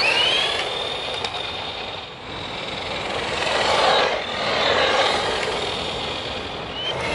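Stock brushed 550 motor and gearbox of a Flyhal FC610 RC truck whining at full throttle on a top-speed run: a high, steady whine that has just finished rising, fading after about two seconds as the truck moves away. A rushing noise swells around four seconds in and fades.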